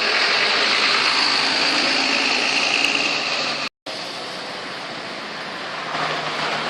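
Roadside traffic noise of a passing tour bus: a steady rush of engine and tyre noise with no clear horn tune. It cuts off abruptly a little past halfway and comes back quieter.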